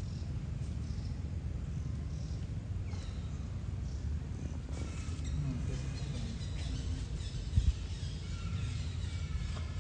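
Steady low rumble with faint, short high-pitched animal chirps in the second half, and a brief thump about three-quarters of the way through.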